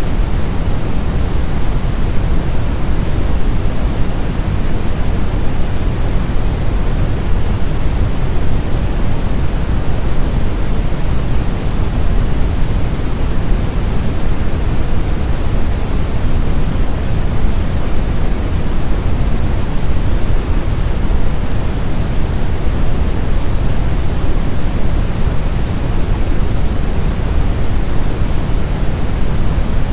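Brown noise: a steady, smooth, deep rumbling hiss, loudest in the low end and fading toward the treble, unchanging throughout.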